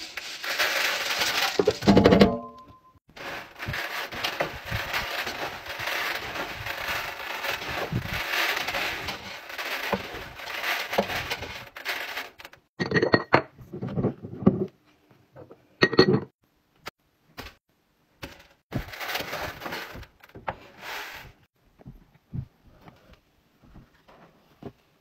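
Masses of tiny laundry scent beads pouring and rattling onto a stainless-steel washer drum and trickling through fingers: a dense, steady hiss of small pellets for about the first twelve seconds, then scattered sharp clicks and another short pour.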